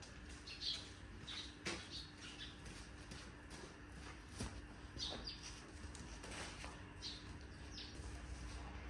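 Faint, scattered bird chirps, short and high, with a few soft knocks and a low steady hum underneath.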